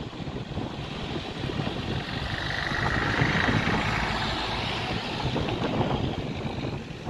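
Jet airliner engine noise mixed with wind buffeting the microphone, swelling to a louder rushing hiss around the middle and easing off again.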